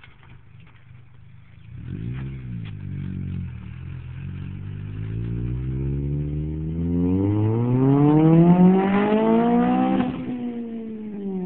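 Honda Civic Si engine through a 63 mm (2.5-inch) Spec-D aftermarket exhaust, revved while parked. It idles, gets a quick blip about two seconds in, then revs up steadily for several seconds and drops back near the end.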